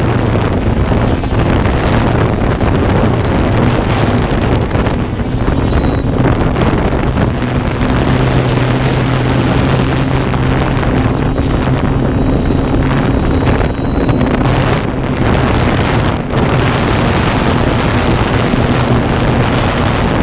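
Multirotor camera drone's motors and propellers heard from its onboard camera: a loud, steady hum holding a low pitch, mixed with wind rushing over the microphone.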